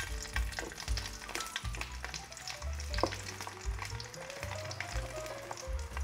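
Food frying in hot fat, sizzling with many small crackles, over background music with a bass line.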